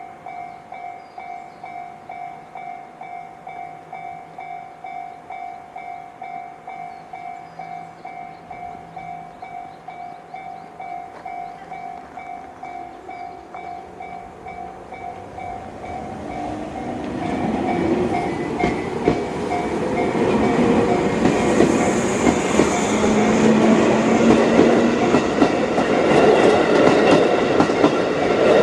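Japanese level-crossing alarm sounding the JR standard electronic bell tone, ringing in a steady rhythm of about two strikes a second. About sixteen seconds in, a JR 211 series electric train comes up to the crossing and passes over it, growing loud and drowning out the bell.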